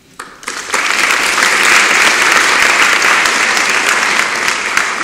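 Audience applauding in a hall: many hands clapping, building up quickly in the first second, holding steady, then starting to die away near the end.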